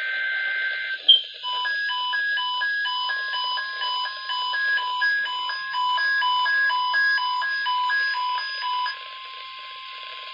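Emergency Alert System test over a radio receiver: the end of a SAME data burst (a warbling two-tone digital squeal), a click, then about eight seconds of rapid electronic alert beeps alternating between two pitches, stopping suddenly and leaving radio hiss.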